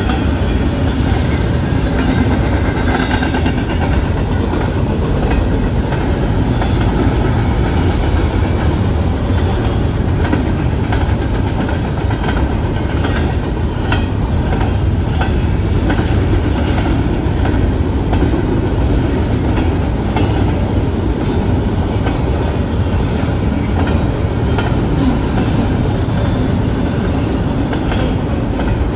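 A train rolling steadily past at close range, its wheels clacking over rail joints.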